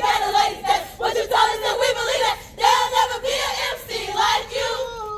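A group of women loudly shouting a chant in unison, with short breaks every half second or so. Near the end one long, steady held call begins.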